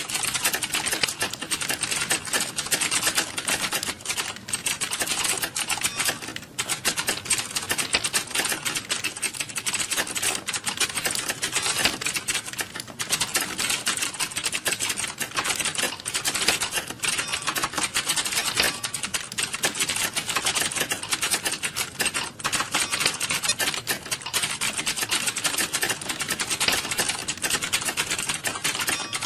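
Computer keyboard typing: a continuous, fast run of key clicks with a few brief pauses.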